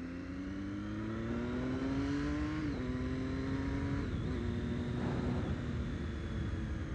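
Triumph Street Triple 675R's inline three-cylinder engine pulling under acceleration, its pitch climbing and then dropping sharply with upshifts about two and a half and four seconds in, then running at a steadier speed.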